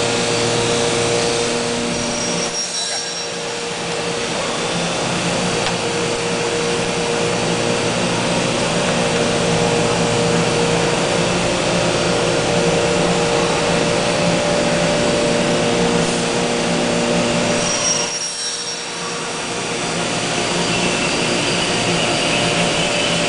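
CNC wood machining centre running steadily while it machines a wooden door, a dense whirring hiss with a few steady hums under it. The level dips briefly twice, about three seconds in and again near eighteen seconds.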